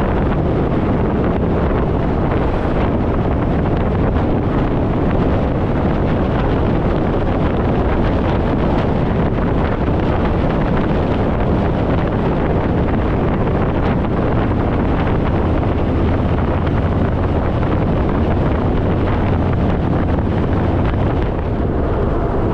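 Heavy wind rush buffeting the microphone at highway speed, with the Harley-Davidson Fat Boy's V-twin engine running steadily underneath at cruise.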